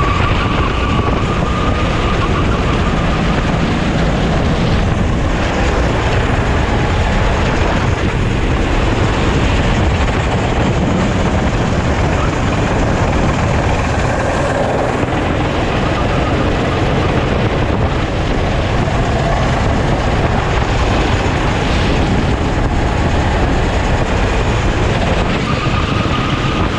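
Sodi racing kart's engine running hard at race speed, its pitch rising and falling through the corners, under heavy wind noise on the onboard camera microphone.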